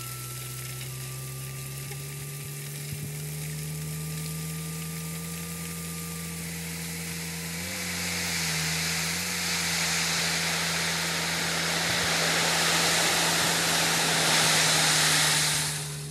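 Small tipper truck's engine running with a slowly rising whine as the hydraulic tipper raises the bed. About halfway through, the load of drainage gravel starts to slide off the tipped bed in a steady rushing hiss that grows louder, then stops abruptly near the end.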